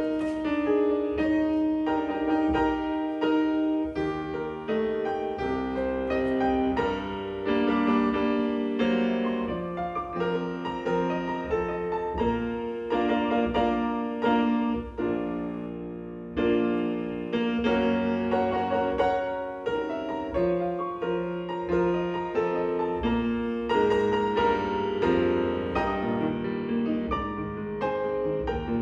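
Instrumental piano music, a slow piece of sustained chords and melody.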